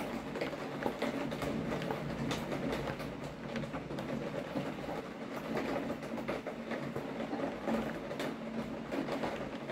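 Heavy rain falling steadily, with a dense, irregular patter of individual drops striking close by.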